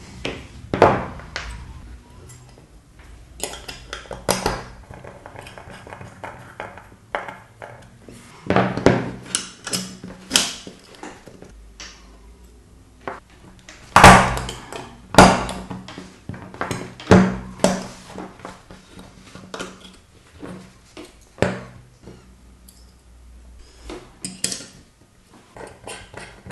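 Irregular metallic clicks and clinks from a Leatherman Wave+ multi-tool being handled, with a few sharper snaps louder than the rest.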